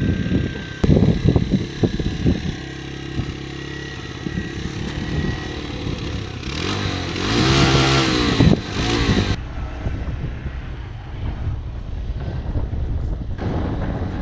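Motorcycle engine running on the road, with a louder surge about seven to nine seconds in that ends abruptly.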